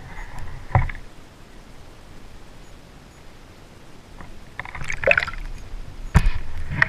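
Water sounds from an underwater GoPro: a sharp click early, then splashing, trickling and dripping as the camera breaks the lake surface, with a few sharp knocks near the end.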